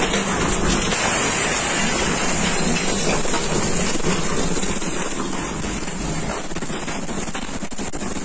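Wind and rain of an F4 tornado heard from inside a house: a loud, steady rushing noise with rain beating against the window glass.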